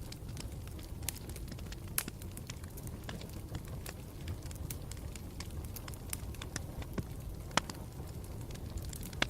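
Campfire burning with a steady low rumble and irregular sharp crackles and pops from the burning wood, the loudest pop about three-quarters of the way through.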